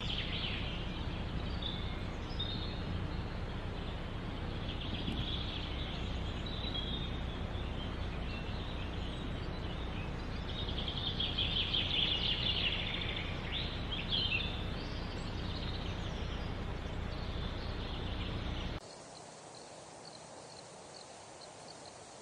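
Gulls calling over steady outdoor background noise, with a burst of rapid repeated calls and some gliding cries about halfway through. Near the end the sound cuts abruptly to a quieter, thinner background.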